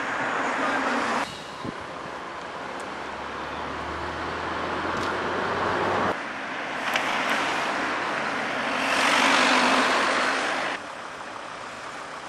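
Road traffic: vehicles passing on a main road, their tyre and engine noise swelling and fading, with a loud pass about nine to ten seconds in. The background changes abruptly three times, where the recording is cut.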